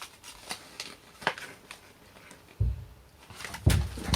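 Handling and opening a toy blind bag: a few small sharp clicks and crackles, then low thumps in the last second and a half.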